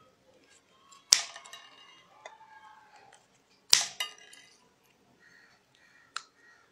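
Scissors snipping through rolled paper tubes: two sharp snips, about a second in and again near the middle, each with a short ringing tail. A couple of fainter clicks come between them and near the end.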